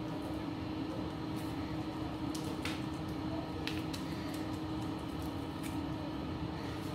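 Steady low hum of room or appliance noise, with a few faint, scattered ticks as fingers crumble a seasoning cube over raw meat and onions in a pot.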